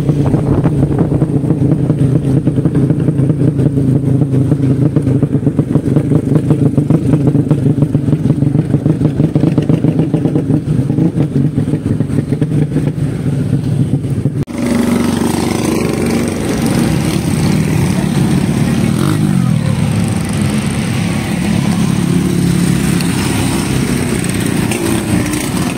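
A 200cc Honda Supra motorcycle engine running with a lumpy, chopping exhaust note that sounds like a helicopter. About halfway through, the sound changes abruptly to a brighter, noisier engine note whose pitch rises and falls with the revs.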